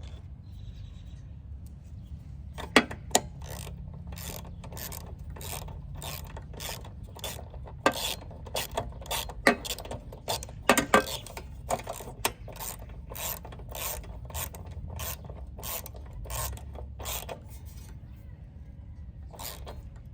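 Socket ratchet clicking, about two sharp clicks a second, while a new spark plug is tightened into a small mower engine.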